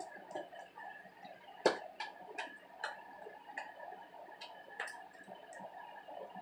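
Thick, sticky slime being stirred, giving irregular sharp clicks and pops, one louder click about two seconds in, over a faint steady background hum.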